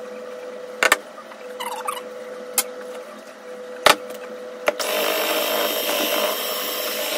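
A few sharp knocks of utensils against a mixing bowl, then from about two-thirds in an electric hand mixer starts and runs with a steady whirr.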